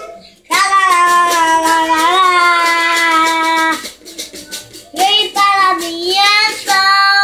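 A young boy singing a worship song, holding one long note for about three seconds, then after a short pause singing a few more notes. Quick strokes on his guitar's strings sound through the pause.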